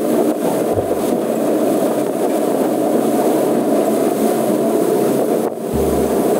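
Fishing boat's engine running steadily while the boat is under way, with wind buffeting the microphone in low gusts that come and go. The noise dips briefly about five and a half seconds in.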